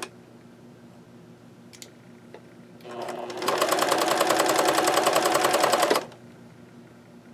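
Select 1546 electric sewing machine zigzag-stitching. It stands still at first with one faint click, starts up about three seconds in, runs at a fast, even stitch rhythm, and stops abruptly near the end.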